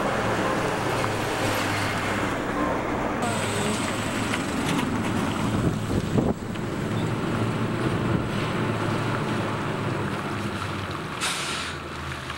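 Foton Forland dump truck's engine running as it drives past close by, with engine and tyre noise. There is a sharp knock about six seconds in as it goes by, and the noise eases off near the end.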